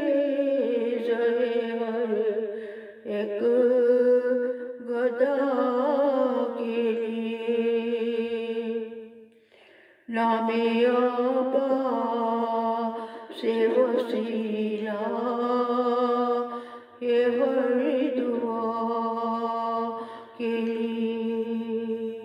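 A woman chanting a devotional munajaat unaccompanied, in long held notes that bend slowly in pitch, with a short pause for breath about ten seconds in.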